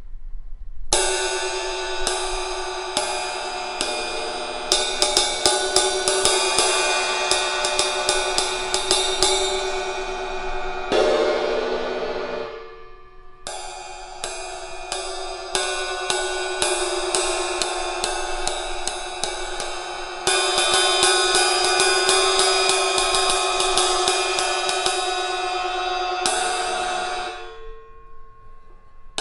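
Vintage A Zildjian Constantinople 20-inch ride cymbal struck in quick, steady patterns, its wash building into a bright, sustained ring. The playing stops twice, and each time the cymbal rings on and fades out slowly; the middle of the passage is played louder.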